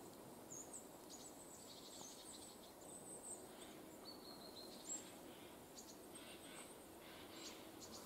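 Faint calls and chirps of several kinds of small birds, short high notes scattered here and there over a quiet background hiss.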